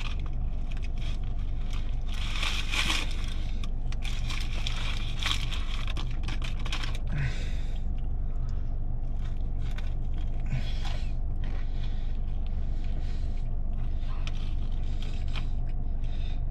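Close-up chewing and crunching of a dry, hard fried chicken sandwich, in irregular spells over a steady low hum.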